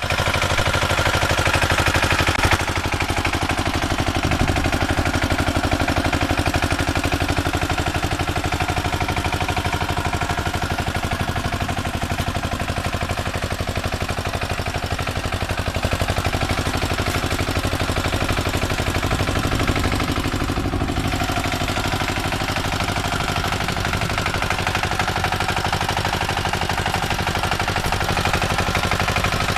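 Kamco power tiller's single-cylinder diesel engine running under load with a fast, even chugging as the tiller works through wet paddy mud.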